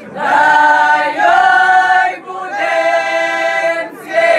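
A group of women singing a Herzegovinian bećarac unaccompanied, holding long notes, with a short break between phrases about two seconds in and again near the end.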